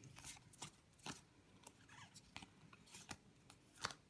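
Faint, scattered crinkles and clicks of a foil Pokémon card booster pack being opened and its cards handled.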